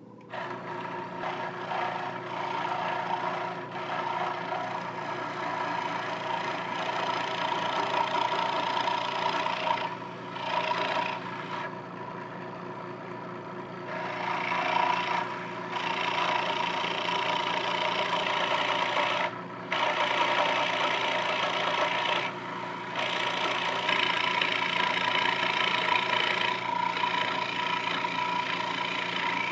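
Scroll saw switched on and cutting wood: the motor and reciprocating blade run steadily as the blade saws an inside cut along a mortise line. The cutting noise briefly dips several times.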